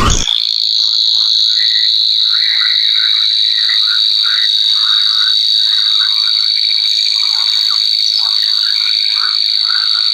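Animal calls: a steady high-pitched buzzing trill held without a break, with many short, irregular chirping calls lower down.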